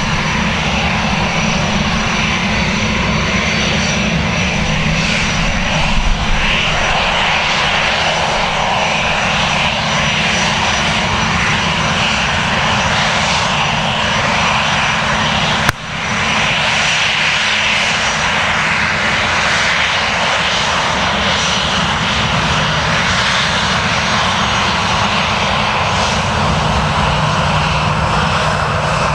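Airbus A320-200 jet engines running at low taxi power as the airliner rolls past, a steady whine over a low rumble. A single sharp click cuts in about halfway through.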